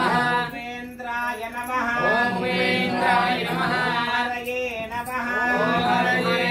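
A man's voice chanting Sanskrit mantras in a melodic, sung style, in long phrases with gliding pitch, over a steady low drone.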